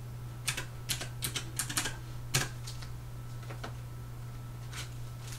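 Keys of a desktop calculator being pressed as cash totals are entered: a quick run of sharp clicks in the first half, the loudest about two and a half seconds in, then a few scattered clicks.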